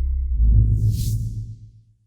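Background music ending: a held chord gives way about a third of a second in to a low rumbling swell topped by a whoosh-like hiss, which peaks about a second in and fades out near the end.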